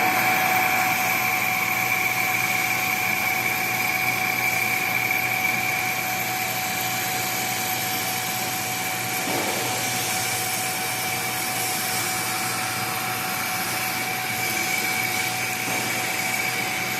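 Metal lathe running steadily with a constant whine while boring out the centres of small saw spacers.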